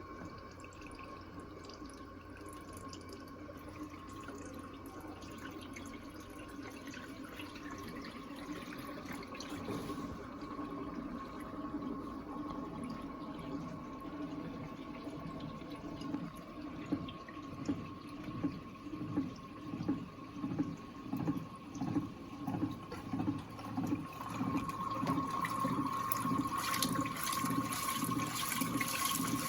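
Electrolux AquaJet LTA15 top-load washing machine filling, its jet cascade pouring water into the tub with a steady rush and a steady high hum. About halfway through, a rhythmic splashing pulse sets in, roughly once a second, and the sound grows louder toward the end.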